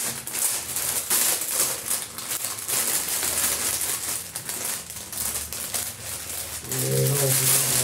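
Plastic packaging of a phone cover being peeled and crinkled by hand: a busy run of rustles and small crackles. Near the end a low, steady hum-like tone sounds for about a second.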